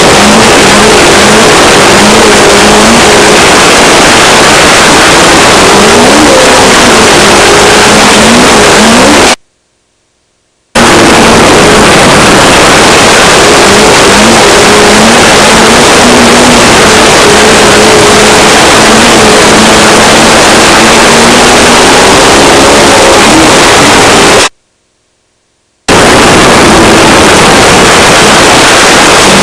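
Off-road race car's engine running hard with its pitch rising and falling under changing throttle, buried in a dense rush of wind and chassis noise picked up by a camera mounted on the car, very loud throughout. The sound cuts out to silence twice, for about a second each time.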